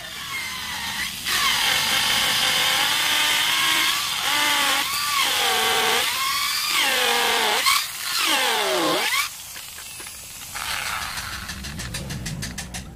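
Handheld electric drill boring into a wooden branch, its motor whine sagging in pitch and recovering several times as the bit bites, with a deep dip about nine seconds in. It runs quieter after that.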